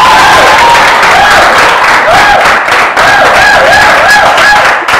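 Studio audience applauding and cheering, with a high wavering call that rises and falls over and over above the clapping.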